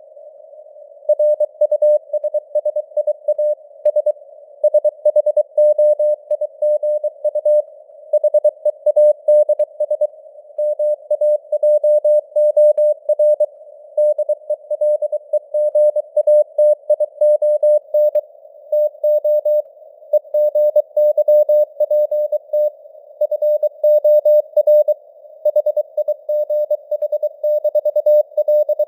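Morse code (CW) sent at 23 words per minute: a single mid-pitched tone keyed on and off in dots and dashes, with short pauses between words. It sits in a narrow band of simulated radio static.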